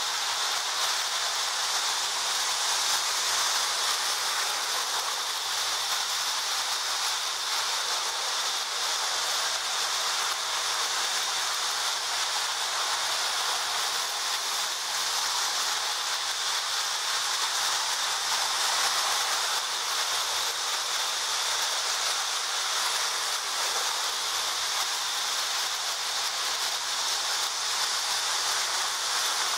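Marx toy trains rolling on metal track: a steady, even hiss of wheels on the rails and running motors.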